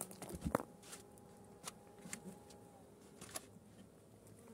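Sheet-metal-covered beehive lid being lowered and set down on the hive box: a knock about half a second in, then a few light clicks and taps.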